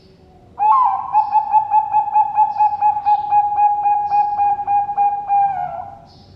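Zebra dove of the Bangkok perkutut song strain singing: a long run of rapid cooing notes, about four to five a second, held at one pitch for some five seconds. Faint high chirps of small birds sound behind it.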